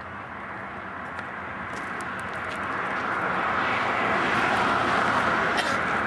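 Rushing noise of a passing vehicle, swelling over several seconds and loudest about four to five seconds in.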